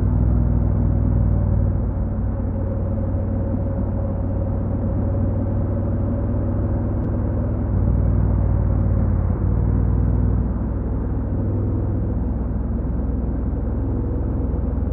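Honda NC750X's parallel-twin engine and stock exhaust running steadily while the motorcycle is ridden, with road noise; the engine note rises and falls slightly a couple of times.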